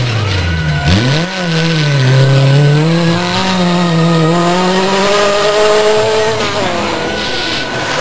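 Rally car engine at high revs on a gravel stage. The revs dip sharply and pick up again about a second in, then hold high and slowly climb, and fall away near the end.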